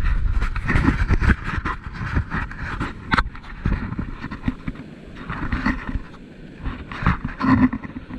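Wind buffeting the microphone at the shoreline, an uneven rumble with irregular knocks and rubs, over the wash of surf.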